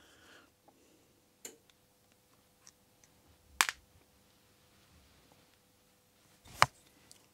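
A few light, sharp clicks of a screwdriver and small screws against the opened Shimano E8000 e-bike motor casing as screws are undone. There is a double click about halfway through and the loudest click a little later.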